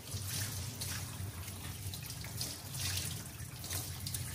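Tap water running into a plastic utility sink, with irregular scratchy strokes of a brass brush scrubbing an etched metal piece under the stream.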